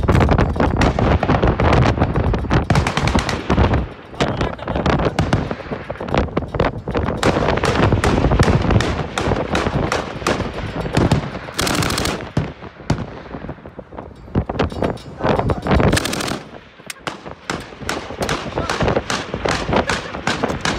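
Machine-gun fire close by: rapid shots in bursts throughout, with two longer, louder bursts about twelve and sixteen seconds in.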